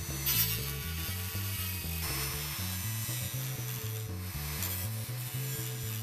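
Dremel rotary tool with a grinding stone grinding the edge of a steel hacksaw blade, a steady high rasping whine. Background music with a bouncing bass line plays underneath.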